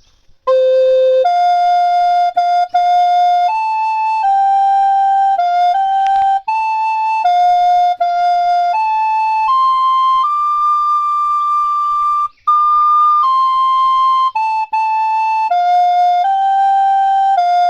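Background music: a solo melody in a clear, flute-like tone, one note at a time with short breaks between notes and one longer held note midway, starting about half a second in.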